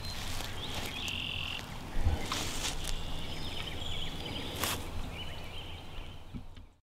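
Outdoor ambience: short, high chirping animal calls, a couple of soft rustling steps in grass, and a low rumble of wind on the microphone. The sound cuts off abruptly near the end.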